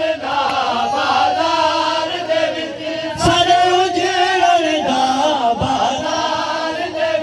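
Men chanting a noha, a Shia mourning lament sung in Punjabi, with several voices together. There are a few short thumps near the middle.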